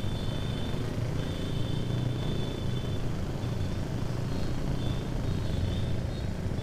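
Motorcycle running at a steady cruise, its engine drone mixed with wind and road noise as it rides. A thin high whine comes and goes over it.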